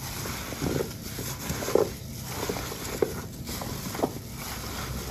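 A plastic-gloved hand tossing raw chicken pieces and sliced vegetables in a stainless steel bowl: irregular soft squelches and rustles of the glove and food, with a few light knocks against the bowl.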